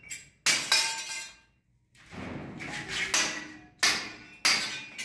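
Hand hammer striking a plastered masonry wall, chipping it away for water pipes. Several sharp blows, two close together near the start, a short pause, then a steady run about once every 0.7 s, each with a short metallic ring.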